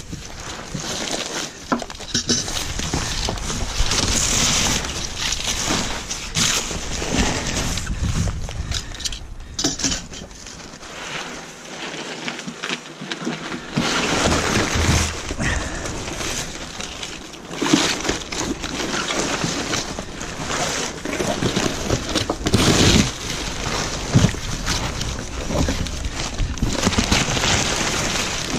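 Cardboard box and honeycomb kraft-paper packing wrap being pulled, torn and crumpled by hand: irregular rustling and crackling with sharp tearing snaps, easing off briefly near the middle.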